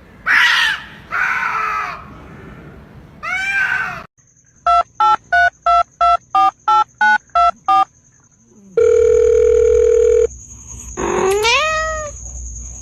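Animal calls with gliding pitch, then a run of ten short, evenly spaced telephone keypad beeps, then a steady held tone of about a second and a half. A rising animal call comes near the end.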